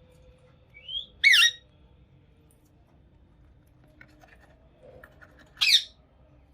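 Indian ringneck parrot calling: a short rising whistle runs straight into a loud, shrill screech about a second in, and a second shrill call comes near the end.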